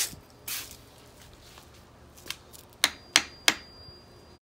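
Hammer tapping a flat wooden stake to pack woven rush cord tight at the corner of a chair seat: sharp wooden taps, one at the start and three in quick succession near the end, with a short scrape about half a second in.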